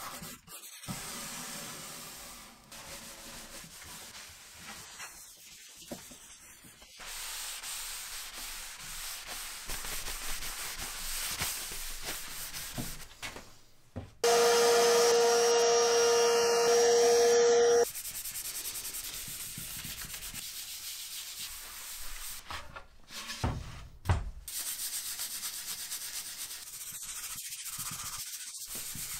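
Cloth pad rubbed back and forth on wood, working oil into the grain, heard in several short stretches. Midway a power tool runs with a loud steady whine for about three and a half seconds. About two-thirds through come a couple of dull knocks.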